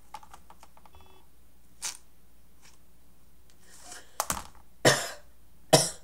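A person with a cold coughing several times in short bursts, the last two the loudest.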